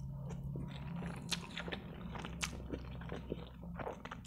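Close-up mouth sounds of a man chewing a mouthful of spaghetti in tomato sauce: wet smacks and clicks, with a noodle strand drawn in near the end.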